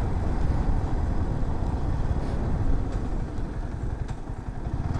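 Motorcycle engine running as the bike is ridden along, a steady rumble that eases briefly about four seconds in.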